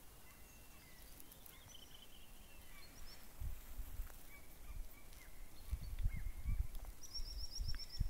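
Small birds calling faintly across open water, with a fast, high trill near the end. Wind buffets the microphone in low gusts about halfway through and again towards the end.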